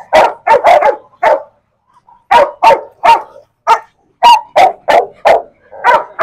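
Pitbull-type dog barking in a run of short, loud barks, about two or three a second, breaking off for about a second early on and then starting again.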